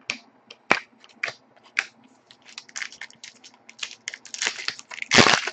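Trading cards being handled and slid through by hand: a run of quick clicks and swishes, sparse at first and then denser, with a longer, louder swish near the end.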